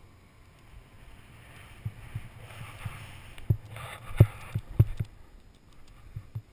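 Snowboard sliding through powder and chopped-up snow, a hiss that builds after the first couple of seconds, with several low thumps as the board knocks over bumps, the loudest about four and about five seconds in. Heard through a helmet-mounted action camera.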